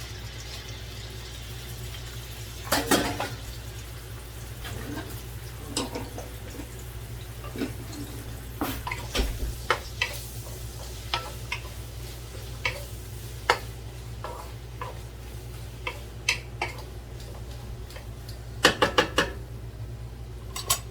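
A spoon knocking and scraping against a metal pot while stirring onions frying in it, in scattered sharp clicks. Near the end comes a quick run of four louder knocks.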